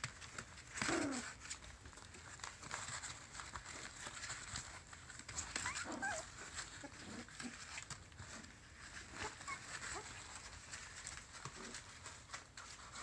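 Corgi puppies play-fighting: short yelps and whines, the loudest about a second in with a falling pitch and a few more later, over the rustle of wood shavings as they scramble.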